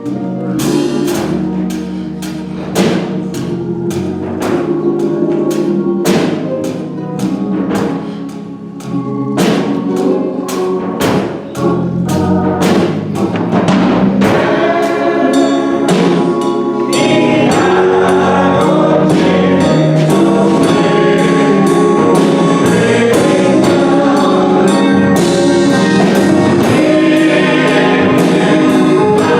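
Gospel choir singing with a band, with drums striking a steady beat. About halfway through, the music grows louder and fuller and holds there.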